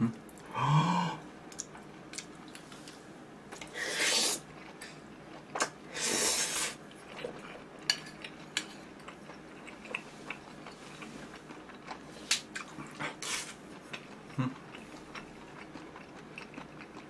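A plastic spoon scraping and clicking against a metal griddle pan, with ramen noodles being slurped and chewed in between; two louder slurps come about four and six seconds in.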